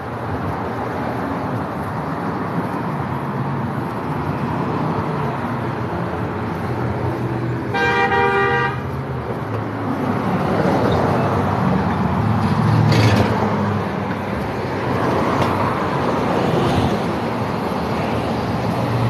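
Street traffic running past, with a vehicle horn honking once for about a second, roughly eight seconds in.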